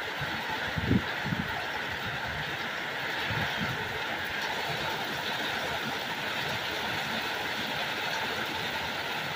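Heavy thunderstorm rain pouring steadily, with a few low thumps about a second in.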